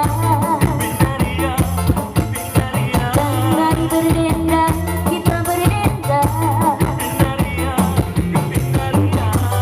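Live band music on a stage: a singer's melody over changing bass notes and a steady, regular beat.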